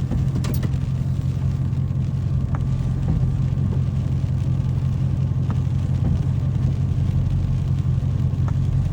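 An engine idling steadily: a low, even hum with a few faint ticks over it.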